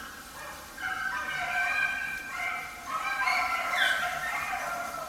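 A pack of beagles baying on a rabbit's trail, several voices overlapping in drawn-out, falling howls: the hounds are running the track.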